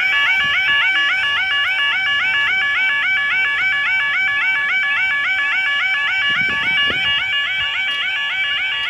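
Level crossing audible warning alarm (the UK 'yodalarm') sounding continuously, a warbling tone that rises and falls about three times a second, warning that the crossing is closing or closed for an approaching train.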